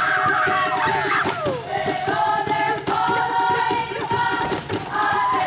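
A group of girls singing a Samoan dance song in harmony, over steady drum beats and hand clapping. A falling cry or two is heard about a second in.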